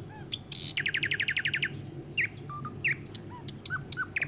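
Small birds chirping: many short rising and falling chirps, with a fast trill of about fourteen notes a second about a second in. Under them, the faint crackle of fish shallow-frying in oil.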